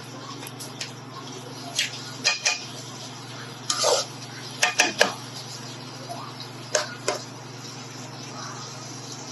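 A spatula scraping and knocking against a nonstick wok as diced chicken, mixed vegetables and mushrooms are stirred, in short irregular strokes that come thickest around the middle. A steady low hum runs underneath.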